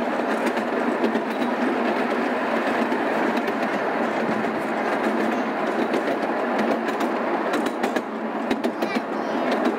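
A miniature park train's ride car rolling along: a steady running rumble and rattle, with scattered sharp clicks and knocks that come more often near the end.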